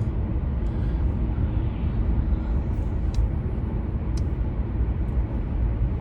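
Car in motion heard from inside the cabin: a steady low rumble of road and engine noise, with a couple of faint clicks.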